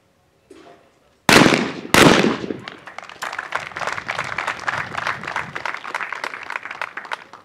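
Two 12-gauge over-and-under shotgun shots about two-thirds of a second apart, a skeet double, followed by spectators applauding.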